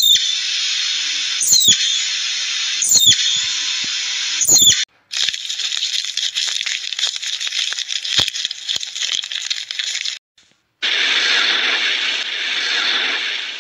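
Four sharp, high chirps, each falling in pitch, about one and a half seconds apart over a steady hiss: a palm squirrel calling. Then comes an outdoor background of hiss with scattered small clicks, and after a brief break a steady rushing hiss of underwater ambience.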